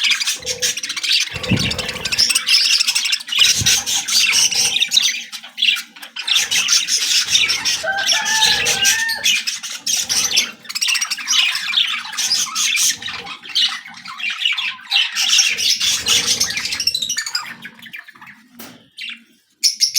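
A group of lovebirds chattering and squawking non-stop in rapid, shrill calls, dying down near the end.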